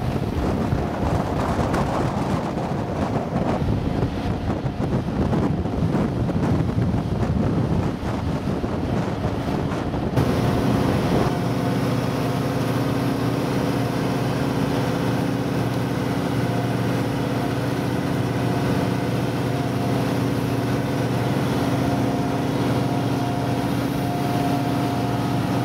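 Motorboat engine running under way, with wind and water rushing past for the first ten seconds or so. After that the rush drops back and a steady engine drone, a hum of several fixed tones, fills the boat's cabin.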